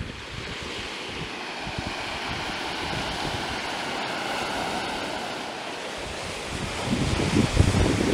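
Surf washing up over black sand: a steady hiss of foam that swells and fades. From about seven seconds in, gusty wind buffets the microphone, the loudest part.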